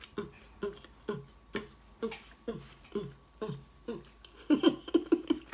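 A woman humming a rhythmic tune with her mouth full while chewing: short falling "mm" notes about twice a second, running into a quicker, louder cluster of notes about four and a half seconds in.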